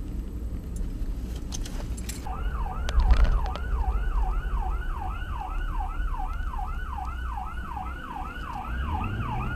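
Emergency vehicle electronic siren in fast yelp mode, its pitch rising and falling about three times a second. It starts a couple of seconds in, over a steady low rumble of vehicle engine and road noise, with a single thump about three seconds in.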